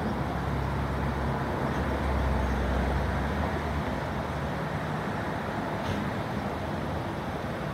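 Low steady rumble of vehicle engines running, heaviest in the first three and a half seconds, over a wash of street traffic noise.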